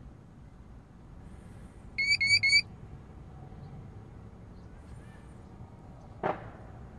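Intoxalock ignition interlock handset giving three quick rising electronic chirps in a row, about two seconds in. A single short knock follows near the end, over a low steady background rumble.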